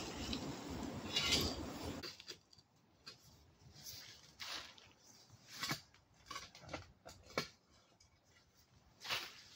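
Spade digging in soil, a dense scraping and crunching with a louder scrape a little over a second in, which stops about two seconds in. Only scattered faint short clicks and rustles follow.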